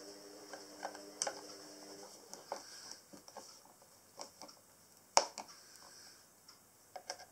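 Screwdriver driving screws into a solid pine drawer frame: scattered small clicks and ticks of the bit and screw turning, with one sharp knock about five seconds in. A steady low hum runs for the first two seconds, then stops.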